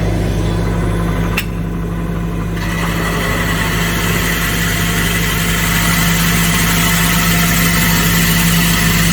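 Excavator's diesel engine running steadily, with a single click about a second and a half in; a steady high whine and hiss join in about two and a half seconds in.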